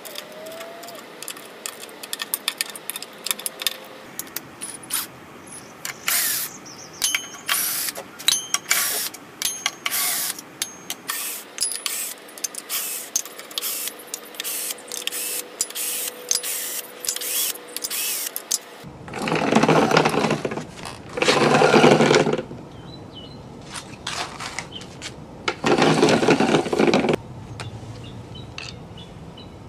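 A hand ratchet and socket clicking and metal bolts clinking as the bolts come out of the cast aluminium inverter cover on a Nissan Leaf's electric motor unit. In the last third come three loud bursts of noise, each a second or two long.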